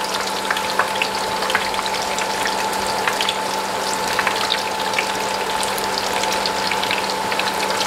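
Hot oil sizzling steadily in a wok as small dough pastries deep-fry at medium heat, with a constant scatter of small crackles and pops.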